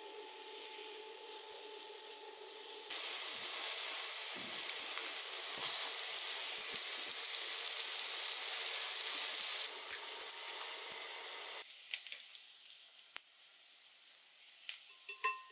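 Food sizzling and hissing in a small electric cooking pot. The hiss steps louder and softer abruptly a few times, then after about twelve seconds drops to a fainter sizzle with scattered light clicks and taps.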